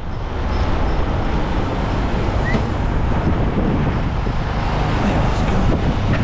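Wind rumbling on the microphone over a motorcycle riding slowly, a steady loud rush with no clear engine note.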